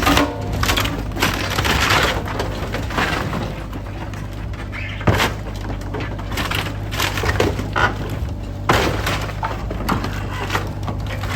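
An old wooden cabin cracking and crashing apart as it is torn down, with repeated sudden breaks and falling debris over the steady running of a heavy machine's engine.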